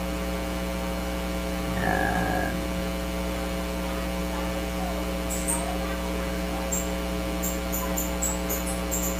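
Steady electrical mains hum. A brief tone comes about two seconds in, and a string of short, very high chirps comes in the second half.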